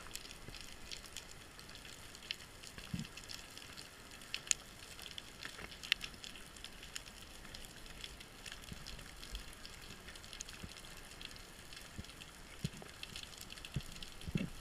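Underwater ambience on a rocky reef: a faint, steady crackle of scattered small clicks, with a dull knock about three seconds in and another near the end.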